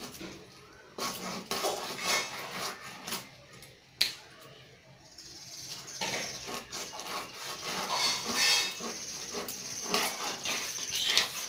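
Knife blade scraping the scales off a whole fish in a string of uneven rasping strokes, with a sharp click about four seconds in.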